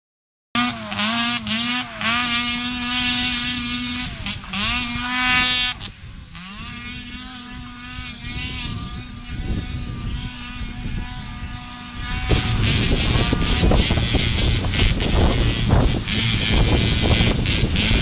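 Prototype Redline snowmobile engine running hard, its pitch dipping and climbing again several times as the throttle changes. The sound drops and steadies about six seconds in. About twelve seconds in it turns much louder and rougher, with a rushing noise.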